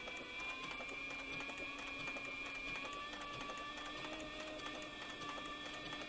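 Cowboy CB4500 harness stitcher sewing leather steadily at speed: a steady motor whine with the rapid, even ticking of the needle strokes.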